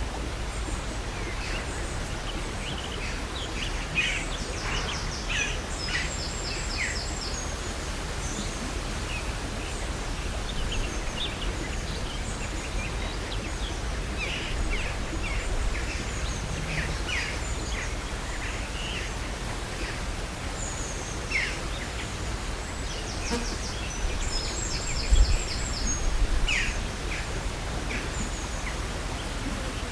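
Outdoor countryside ambience: several birds chirping and singing, with short calls and quick trills, over a steady low wind rumble. A brief low bump about 25 seconds in.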